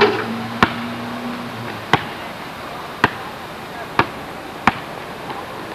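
Five sharp knocks, roughly a second apart, over steady background noise.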